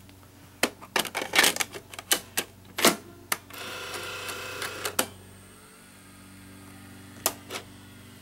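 Plastic clicks and clacks of a Betamax cassette being pushed into a Sony Betamovie camcorder's cassette compartment and the compartment being shut. These are followed by a mechanical whir lasting about a second and a half, and a single click near the end.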